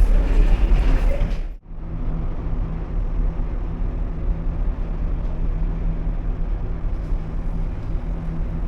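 Steady low engine rumble with a constant hum, as heard aboard a large car ferry. About a second and a half in, a louder, busier ambience cuts off abruptly and the rumble carries on evenly.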